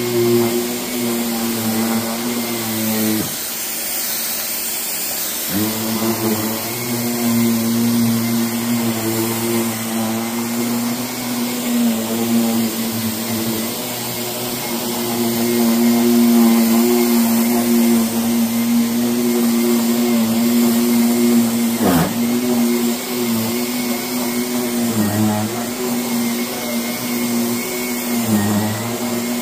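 Rotary floor machine scrubbing a shampooed rug with its brush: a steady motor hum and whir. Its pitch drops and comes back up a few times, once for about two seconds a few seconds in.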